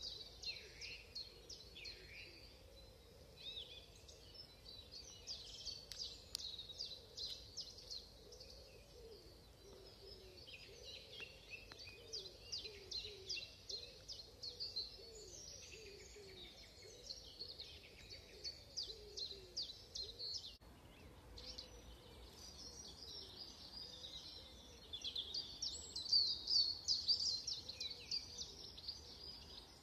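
Spring dawn chorus: many songbirds singing over one another in rapid trills and whistled phrases, with a louder burst of trilling near the end.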